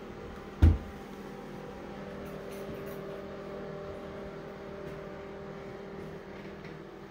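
A bathroom vanity cabinet door swung shut with a single sharp thud about half a second in, over a steady low hum.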